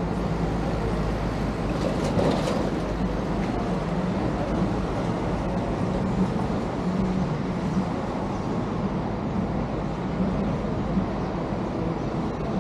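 Steady vehicle running noise: a low engine hum under a constant rushing noise, with a short louder rattle about two seconds in.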